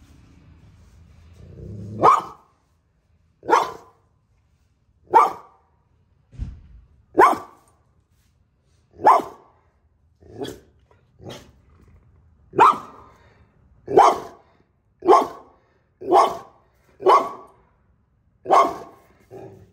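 An XL American bully dog barking: about fifteen single short barks, one every second or so. A low growl builds just before the first bark.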